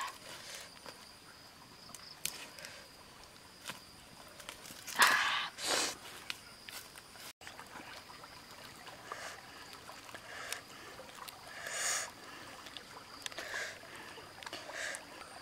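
Scattered rustling and scraping from hands handling grilled fish over a wicker basket, with two louder rustles about five seconds in. A faint steady high whine runs behind.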